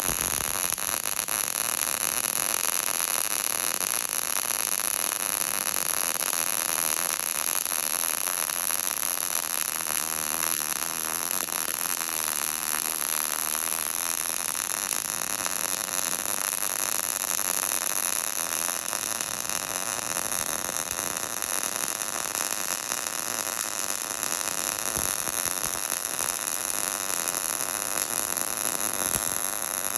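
MIG welding arc running one long continuous bead: a steady, even hiss that holds without a break.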